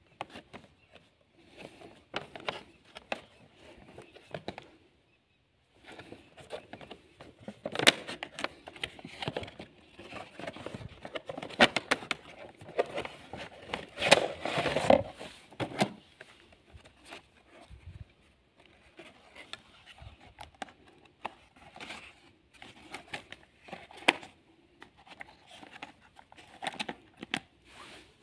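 Cardboard toy box being handled and opened by hand: irregular rustling, scraping and tapping of cardboard and plastic packaging, with a short pause about five seconds in.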